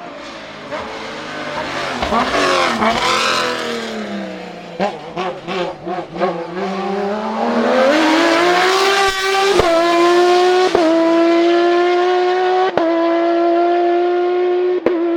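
Racing car engine at full effort on a hillclimb. The pitch swings quickly up and down, then comes a cluster of short sharp cuts, then a long rising acceleration that levels off at high revs, broken by a few brief sharp cuts.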